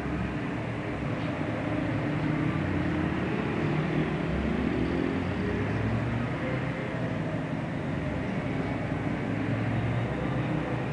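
Road traffic: several car engines passing through a junction, with a continuous rumble and engine notes rising and falling as the vehicles move off and go by.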